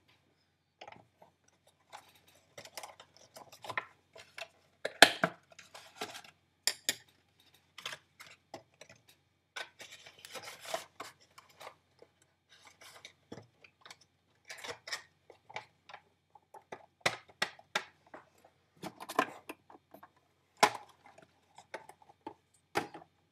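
Irregular taps, clicks and short crinkles of packaging being handled and opened by hand.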